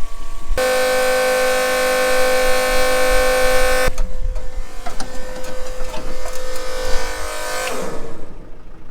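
Battery-powered diesel transfer pump running with a steady electric whine as it pumps fuel into a combine harvester's tank. The whine drops suddenly about four seconds in, carries on weaker, and dies away near the end.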